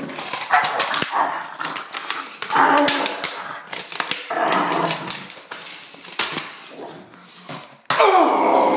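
A man's wordless growls and yells of rage in short rough bursts, with knocks and rustling from a handheld phone being jostled; a louder, longer yell starts near the end.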